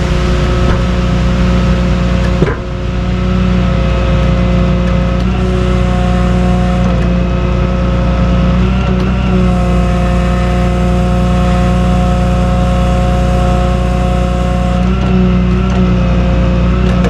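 Vehicle engine running, a steady drone whose pitch shifts slightly now and then, with a single sharp knock about two and a half seconds in.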